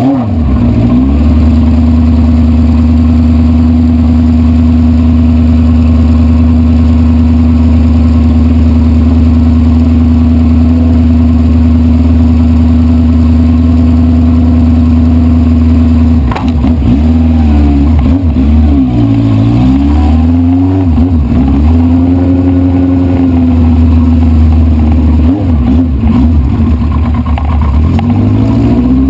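1973 Honda CB500 Four's air-cooled inline-four engine, running at steady revs for about sixteen seconds, then the engine note repeatedly dropping and rising as the throttle is closed and opened.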